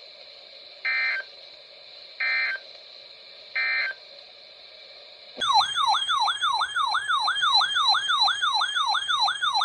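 Three short bursts of Emergency Alert System (SAME) digital data tones, evenly spaced about a second and a half apart, typical of the end-of-message signal. After a short gap comes a loud warbling alert tone that sweeps up and down about three times a second.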